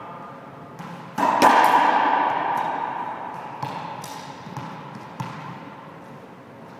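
Racquetball smacks and bounces ringing in a hard-walled court: a quick cluster of sharp hits about a second in, the loudest point, trailing a long echo, then a few lighter bounces and taps.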